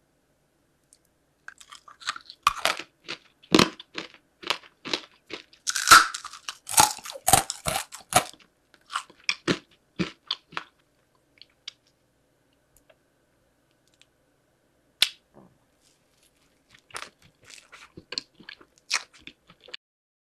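Close-miked biting and chewing of crunchy candy, with a dense run of sharp crunches through the first half. After a pause there is a single crunch, then a shorter spell of chewing near the end.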